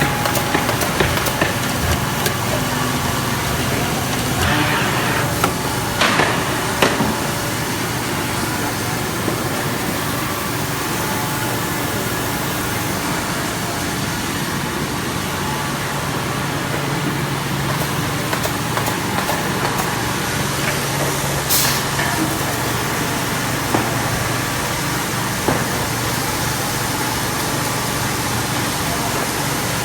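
Woodworking machinery running steadily with a low hum and a broad noise, with occasional sharp clicks.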